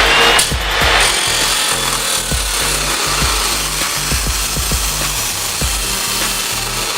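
Makita 2414NB 355 mm abrasive cut-off saw grinding through 4x4 steel hollow tube, a loud, steady gritty rush of the wheel in the metal. Background music plays underneath.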